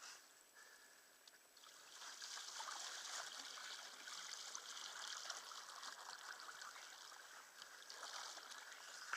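Faint trickling and splashing of water around a kayak under way, swelling and easing after a quieter first second or so.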